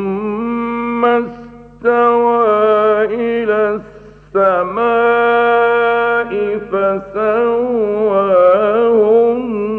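A male Quran reciter chanting in a slow melodic style, with long wavering held notes and short pauses between phrases, about one and four seconds in. A faint steady hum from an old radio recording lies underneath.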